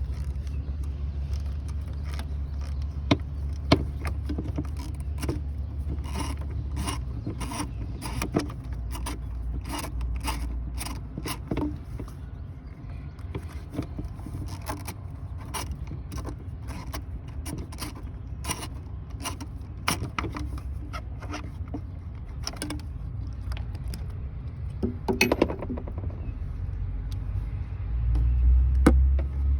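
Hand ratchet on an extension clicking in short uneven runs as 10 mm bolts are backed out, with a few louder metal clinks, over a steady low hum.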